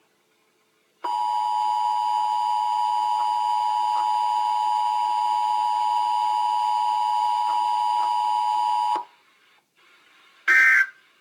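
Emergency Alert System attention signal: a steady two-pitch electronic alarm tone held for about eight seconds, then cutting off. Near the end comes a short, higher-pitched digital data burst.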